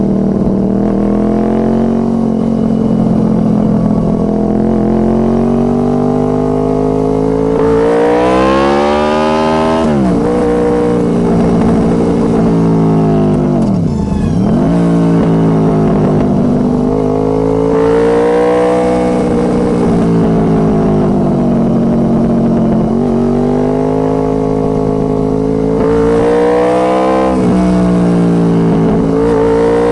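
Honda VFR800 Interceptor's V4 engine through a Two Brothers Racing aftermarket exhaust, its revs rising and falling as the bike is ridden hard through a string of bends. The pitch climbs steeply about 8, 17 and 26 seconds in, and drops sharply and recovers about 14 seconds in.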